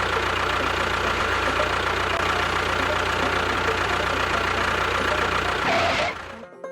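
A motor running steadily with a fast, even low pulsing and a held whine, cutting off about six seconds in.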